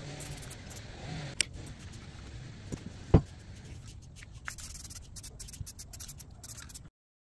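Handling noise as a freshly painted steel spanner wrench is lifted off a plywood board: a sharp knock about three seconds in, then light scraping and crackling. The sound cuts off suddenly near the end.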